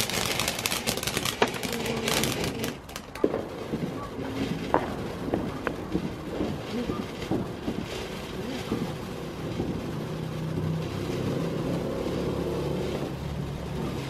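Ground fountain firework spraying sparks: dense crackling for the first few seconds, a few single pops, then a steady rushing hiss.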